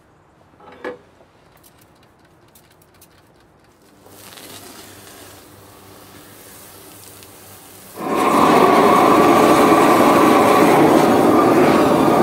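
A propane torch burning with a loud, steady roar that starts abruptly about eight seconds in, after a quieter steady hiss from about four seconds in. About a second in there is one brief squirt-like sound.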